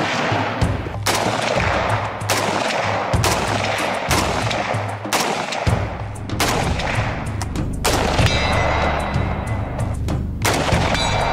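Browning BAR MK3 DBM semi-automatic .308 rifle firing shots at a steady pace, about one a second, each followed by a trailing echo, over background music with a heavy bass line.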